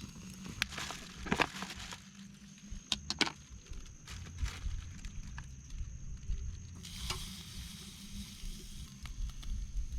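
Wood campfire crackling, with scattered sharp pops and a soft hiss that grows near the end, over a faint steady high tone.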